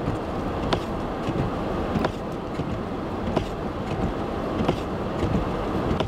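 Steady vehicle running noise with a sharp click about every second and a half.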